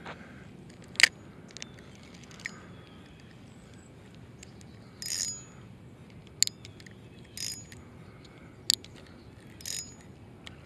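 Spinning reel being handled, giving a few sharp clicks and several short bursts of mechanical reel noise a second or two apart.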